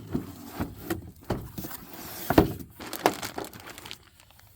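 Cardboard box and packaging being opened and handled to get a new control arm out: rustling and scraping with scattered knocks, the loudest knock about halfway through.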